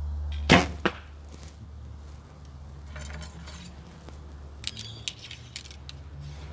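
A recurve bow being shot: a sharp snap of the released string about half a second in, followed almost at once by a second, smaller sharp knock. A few light clicks and taps follow near the end.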